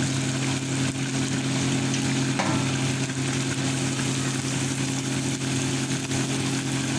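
Noodles in broth bubbling and sizzling in a wok over a gas flame while being stirred with a metal spatula, over a steady low hum. One short knock of the spatula on the wok comes about two and a half seconds in.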